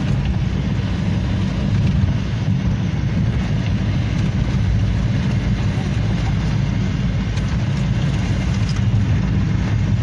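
Steady low rumble of a vehicle in motion, engine and road noise.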